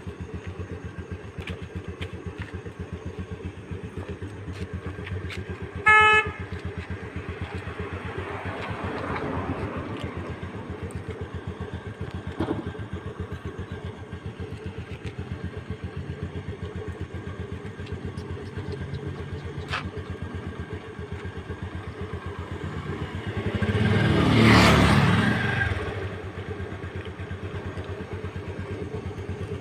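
Road traffic: a brief vehicle horn toot about six seconds in, and a vehicle passing close, swelling and fading, a little past the middle as the loudest sound. A steady rapid throb runs underneath throughout.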